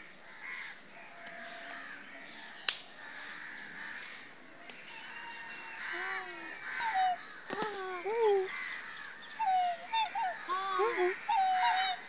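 Black swans calling: a series of short calls that bend up and down in pitch, starting about halfway in and coming more often towards the end. Small birds chirp high above them, and there is a single sharp click a few seconds in.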